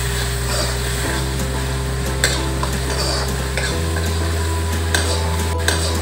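A spoon stirring a tomato, green chilli and chana dal tadka sizzling in oil in a kadhai, with the spoon scraping the pan and a few sharp clinks against it.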